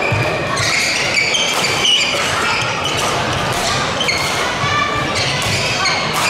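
Badminton doubles rally on an indoor wooden court: sneakers squeaking sharply on the floor, racket strikes on the shuttlecock and footfalls, with spectators' voices in the background.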